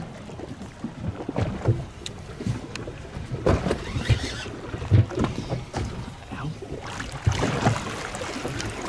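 Small waves slapping against the hull of a drifting boat, with irregular knocks and wind on the microphone.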